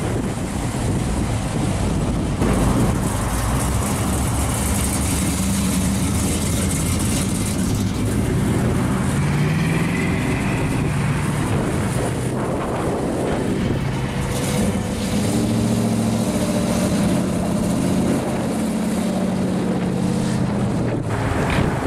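Classic American cars' engines and exhausts running as the cars drive by. One engine note rises around nine seconds in as a car accelerates away, and another car's engine runs steadily past near the end.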